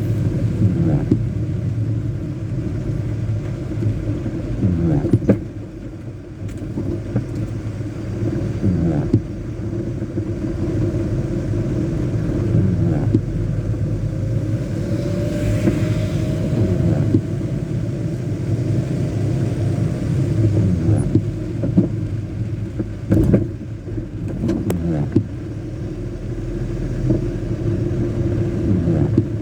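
Heavy, sustained rain, heard as a steady low rumble with a few brief knocks.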